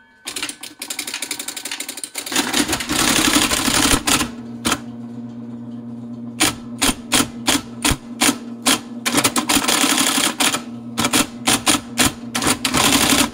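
An IBM Selectric typewriter, wired up as a computer terminal, starts its motor with a steady hum about two seconds in. The typeball then strikes the paper in fast runs and single keystrokes as it prints text sent over the serial port.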